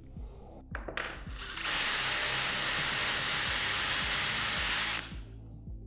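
Cordless drill boring a hole into a pine board, running steadily at one speed for about three and a half seconds and then stopping abruptly, after a couple of short clicks.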